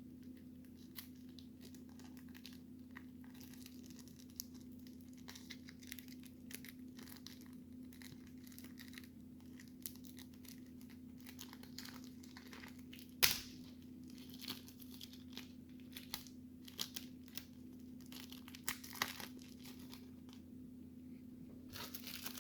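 A trading-card pack wrapper being torn open and crinkled, with quiet scattered crackles and one sharper crack about thirteen seconds in.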